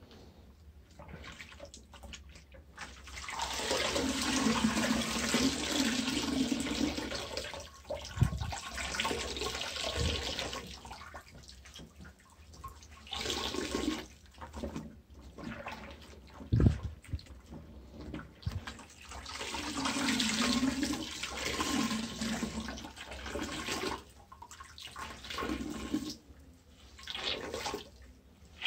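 Water running and splashing out of a wet shirt wrung by hand over the tub of a Frania rotor washing machine, in several long pours of a few seconds each with short pauses between, and a few low thuds.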